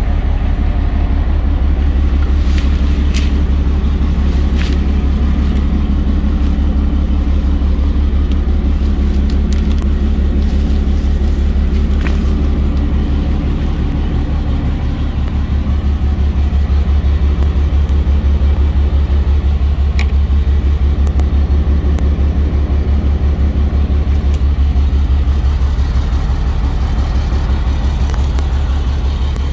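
Caterpillar C7 inline-six diesel engine of a Freightliner FL70 box truck idling, a steady low rumble with an even pulse, with a few light clicks over it.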